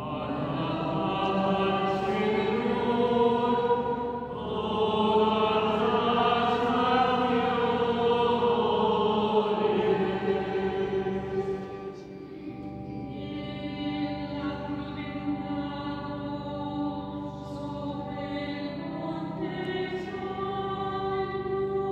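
Liturgical chant of the acclamation after the reading, sung in a reverberant church over a steady low held note. It is fuller and louder for the first twelve seconds, then softer with longer held notes.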